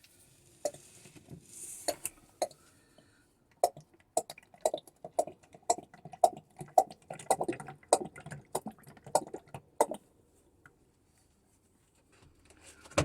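Fork oil glugging out of its bottle into a plastic measuring jug, a quick uneven run of clunks and gurgles lasting several seconds, with a few knocks of the bottle and jug being handled before it.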